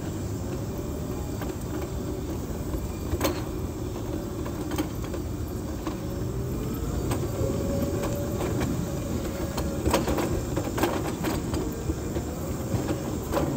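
Wheelchair rolling along a concrete sidewalk: a steady rumble with scattered sharp clicks.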